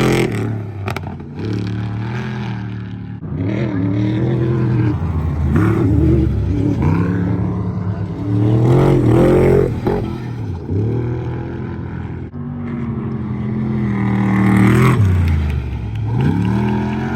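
Off-road race truck engines revving hard, their pitch climbing and dropping again and again as the throttle is opened and closed.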